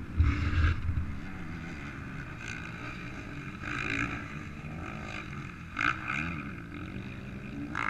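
Off-road motorcycle and quad engines running on a motocross track, revving up and down and surging louder several times.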